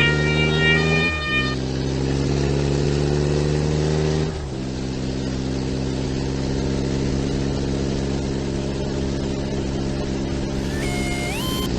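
A vehicle engine accelerating, its pitch climbing and then dropping sharply twice, about a second in and about four seconds in, as it changes up through the gears, then running steadily. A two-tone siren-like sound carries over the start and stops about a second and a half in, and a short rising tone sounds near the end.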